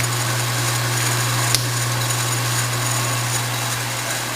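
Emco Maximat Super 11 metal lathe running with its power cross feed engaged: a steady motor hum over a broad mechanical hiss, with a single sharp click about a second and a half in.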